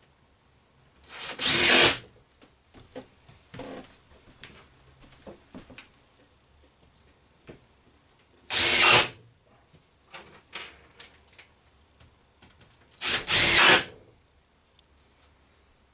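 Power drill driving screws into the countertop's OSB in three short bursts, each under a second, with light knocks and handling clatter between them.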